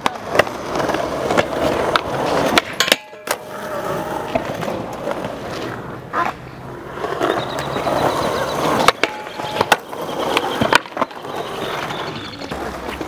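Skateboard wheels rolling on concrete, broken by a string of sharp clacks from boards being popped and slapping down.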